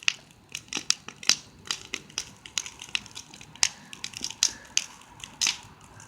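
Large wood bonfire crackling, with irregular sharp pops and snaps of burning wood a few times a second.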